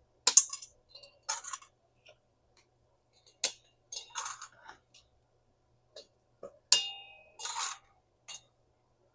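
Dry lasagna noodles being snapped in two, with the pieces clinking into a bowl: a run of about six sharp cracks and clinks, a couple of them ringing briefly.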